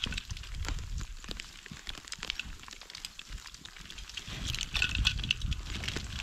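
Wind rumbling on the microphone, with many short crackles and clicks close by, busiest about four and a half to five and a half seconds in.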